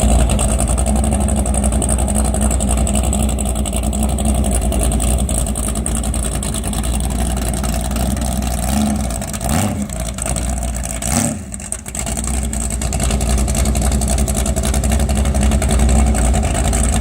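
Chevrolet big-block V8 in a small boat running hard and steady under way. Its level drops briefly about eleven seconds in, then picks back up.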